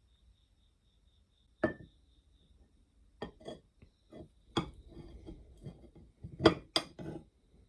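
Hard objects being handled: a single clink with a short ring, then a run of knocks and clinks, the loudest near the end.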